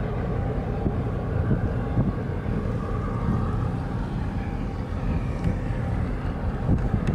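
Steady low rumble of ship engines from a container ship and the tugboat alongside it, with wind buffeting the microphone.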